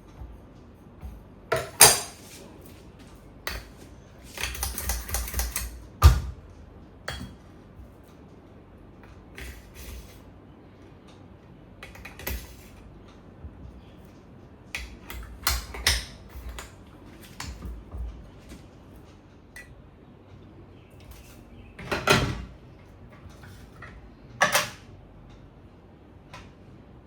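Scattered clicks, taps and knocks of espresso gear being handled while a shot is prepared, with a rattling stretch about four seconds in, a sharp knock about six seconds in, and two louder knocks near the end.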